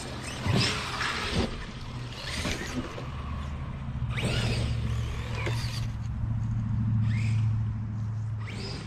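Electric RC cars' motors whining in several short rising and falling spurts as they accelerate and back off, over a steady low hum.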